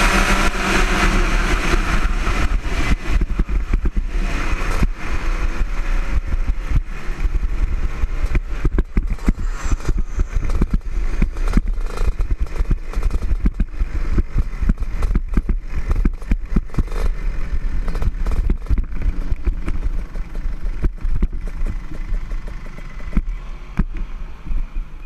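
Onboard sound of a Rotax Junior Max kart's 125cc two-stroke engine, its pitch falling as the kart slows off the pace and then fading. What remains is a low rumble broken by frequent sharp knocks and rattles as the kart rolls slowly in.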